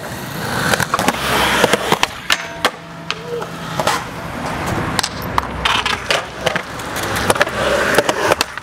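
Polyurethane skateboard wheels rolling over concrete, with scattered sharp clacks and knocks of boards hitting the ground.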